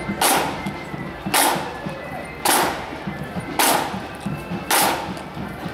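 Marching band's side drums playing a steady parade beat, with a loud accented stroke about once a second and quick lighter taps between.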